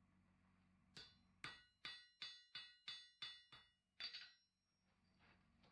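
Blacksmith's hammer striking the anvil about eight times in an even rhythm, roughly three blows a second, each blow ringing, followed by a duller knock about four seconds in.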